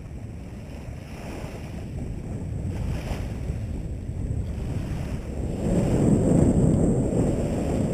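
Wind rumbling on the microphone over small waves lapping at the shore. The wind rumble grows louder about six seconds in.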